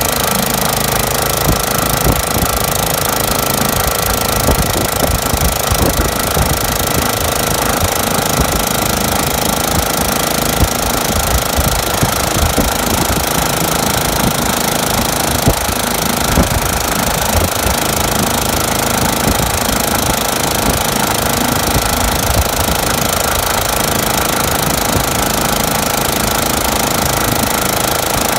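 Single-cylinder, air-cooled four-stroke 5.5 hp Honda lawnmower engine running steadily under load as the power head of a converted Evinrude outboard, driving the boat along.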